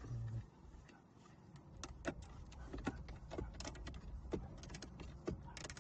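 Faint, irregular small clicks and ticks of a screwdriver working a screw out of the dashboard, a few a second.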